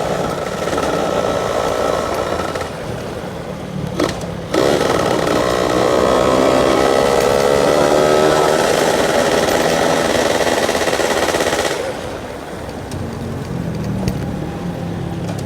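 Yamaha F1ZR two-stroke single-cylinder motorcycle engine under way with a gruff exhaust note. There is a short break about four seconds in, then the pitch rises steadily for about seven seconds as it accelerates, and it drops back near twelve seconds as the throttle eases.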